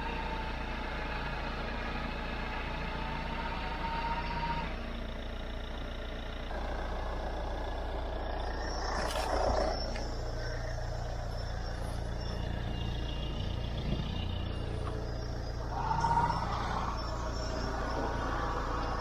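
Recovery truck's engine running steadily, with a steady high whine over it that stops about four and a half seconds in and comes back near the end, and a short louder noise about nine seconds in.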